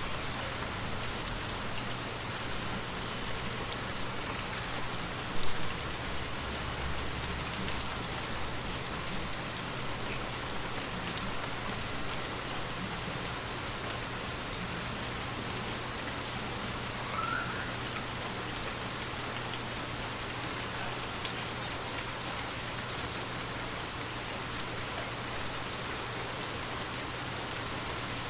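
Steady rain falling, an even hiss of drops on surfaces, with a steady low hum underneath. A short, louder sound stands out about five seconds in.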